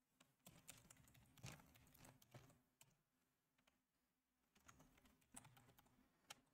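Very faint computer keyboard typing: scattered soft key clicks against near silence, one slightly louder about a second and a half in.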